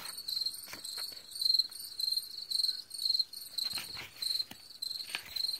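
Crickets chirping, a high chirp repeating about three times a second.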